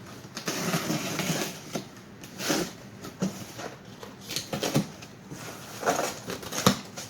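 Cardboard shipping package being opened by hand: irregular rustling and scraping of cardboard and packing material, with a sharp knock near the end.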